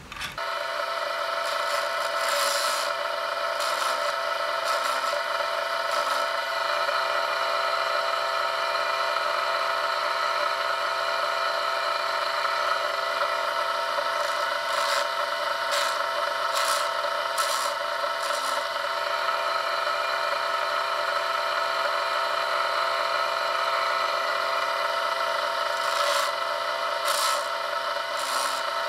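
Bench chainsaw-chain grinder's electric motor spinning up and then running with a steady whine. Brief rasps of grinding come several times as the abrasive wheel is brought onto the chain's cutter teeth.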